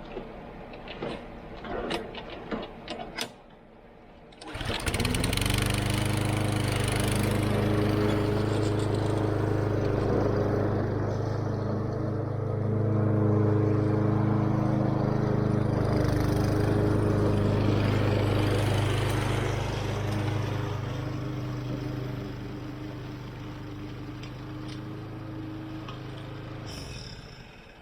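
A few clicks and rattles, then the Kohler single-cylinder engine of a walk-behind Lawn Boy mower starts about four seconds in and runs steadily, dropping in level over the last few seconds before it shuts off near the end.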